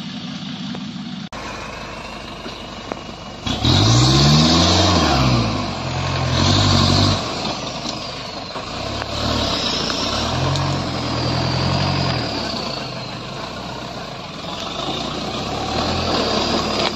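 Nissan Big-M pickup's engine revving hard and falling back in several bursts as the truck crawls up a steep, rutted dirt climb. The first and strongest rev comes about three and a half seconds in.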